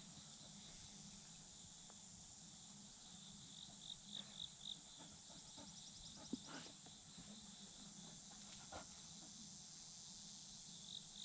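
Faint, steady trilling of field insects, with a few short chirps about four seconds in and a single soft tap a little after six seconds.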